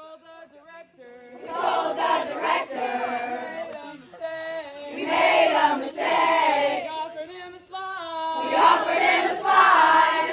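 A group of children singing a camp song together, unaccompanied, in loud phrases with short pauses between them.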